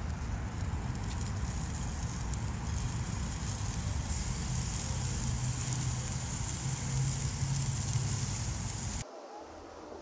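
Ice block sizzling on the hot grate of a charcoal barbecue: a steady hiss over a low outdoor rumble. It drops off sharply about a second before the end.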